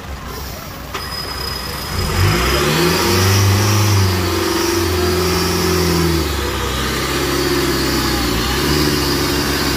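Off-road truck's diesel engine revving hard under full load as the truck climbs a steep muddy bank. The revs rise sharply about two seconds in, hold high, ease briefly past the middle, then build again near the end.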